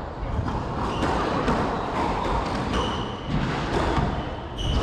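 Squash rally: several sharp knocks of the ball off racket and walls, with short squeaks of court shoes on the floor.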